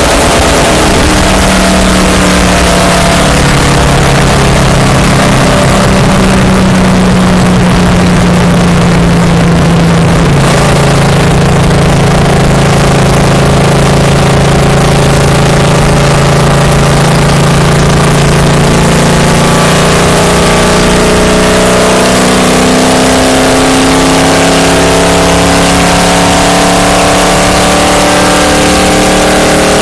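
Stock car's V8 engine running hard at racing speed, heard loud from inside the car over heavy wind and road noise. The engine note holds steady, dips slightly about ten seconds in, then climbs steadily through the last ten seconds as the car accelerates onto the straight.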